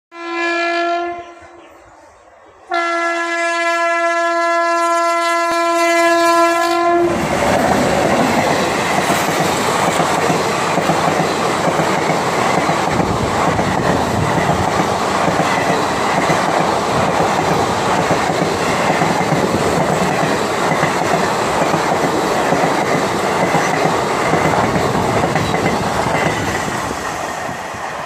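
WAP-7 electric locomotive's horn sounding twice: a short blast, then a longer one held for about four seconds as the train closes in at speed. The express then rushes past with steady, loud wheel-on-rail noise from its coaches, fading near the end.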